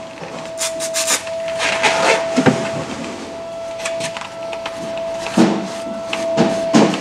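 Hands working among parts in the front trunk of a Tesla Model S: irregular rustling, scraping and a few sharp knocks, over a steady thin whine.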